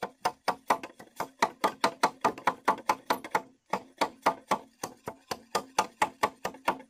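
A large cleaver-like knife chopping rapidly at a green bamboo pole, about five sharp strikes a second with a brief pause midway. A steady low ring from the hollow pole sounds under the strikes.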